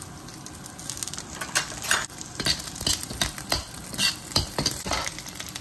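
Sliced Chinese chorizo sizzling in oil in a carbon steel wok as a wok spatula stirs it, scraping and knocking against the pan several times a second. The chorizo is being toasted slowly to render out its fat.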